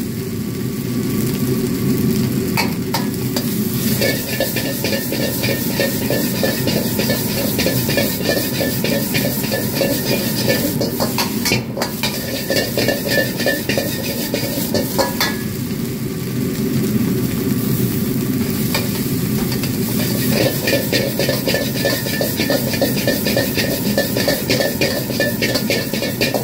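Fried rice sizzling in a wok over a high gas flame, with a metal ladle scraping and clacking rapidly against the wok as the rice is stirred and tossed. A steady rushing noise from the burner runs underneath.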